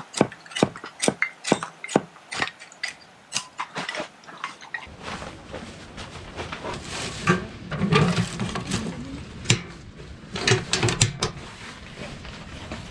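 Camp gear being handled in a tent: a quick run of sharp clicks and clattering knocks for the first few seconds, then softer rustling and knocks, including the metal door of a small tent wood stove.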